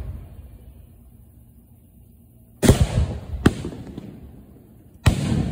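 Firework shells from a display's mortar racks going off in three sharp booms, the second under a second after the first and the third near the end, each trailing a fading rumble. The opening moments hold only the dying rumble of an earlier shot.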